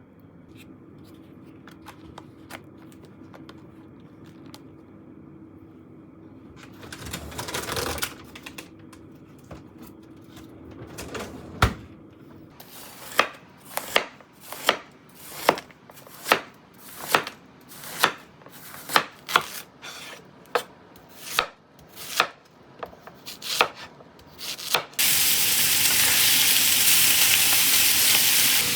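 Kitchen knife chopping on a cutting board in steady strokes, about one and a half a second. Near the end food goes into a hot pan and starts sizzling loudly all at once.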